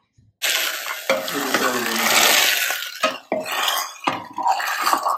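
A metal ladle stirring thick cooked daliya in a pressure cooker: a wet scraping for a couple of seconds, then several sharp knocks of the ladle against the pot.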